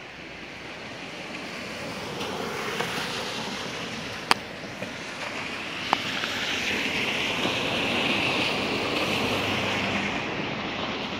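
Rain hissing on wet asphalt, with a car's tyres swishing over the wet road, swelling to a peak past the middle and easing off near the end. Two sharp clicks, a second and a half apart, come about four seconds in.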